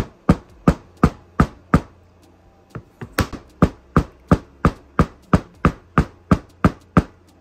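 Steel claw hammer knocking on a rock-hard bath bomb, about eighteen sharp knocks at roughly three a second, with a short pause about two seconds in; the bomb takes the blows without breaking.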